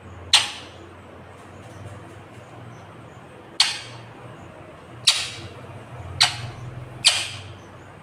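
Rose-ringed parakeet giving five short, harsh squawks, spaced unevenly a second or more apart.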